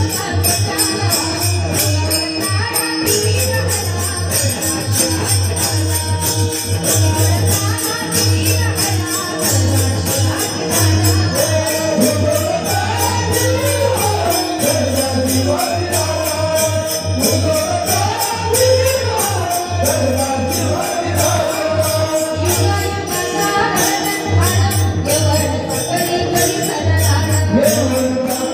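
Live devotional music through a PA sound system: a voice singing a rising and falling melody over fast jingling percussion and a steady pulsing bass beat.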